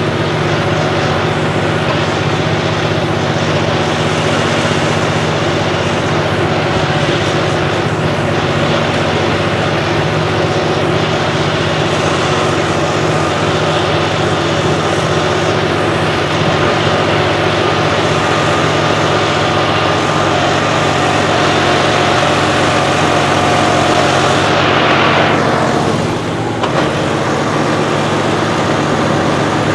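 Modified John Deere 5405 turbo-diesel tractor engine running hard and steady under load, pulling heavy ploughs. About 25 seconds in, a high whine sweeps quickly downward and the engine note dips for a moment, then picks up again.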